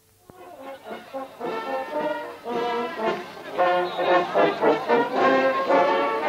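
Marching brass band playing. It comes in after a brief silence at the start and gets louder over the first few seconds.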